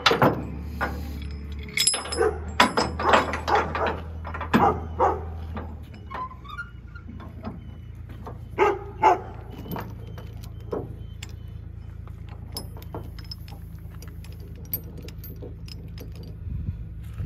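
Steel tie-down chain clinking and rattling against a wooden trailer deck as it is pulled taut and hooked, with a dense run of sharp clanks over the first few seconds and a couple more about nine seconds in.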